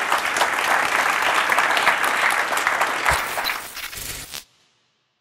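Audience applauding: dense, steady clapping that cuts off suddenly about four and a half seconds in.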